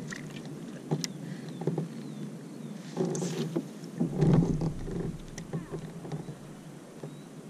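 Handling noise aboard a fishing kayak on calm water: scattered light clicks and knocks of rod and gear, with a louder run of bumps and rustling about three to four and a half seconds in.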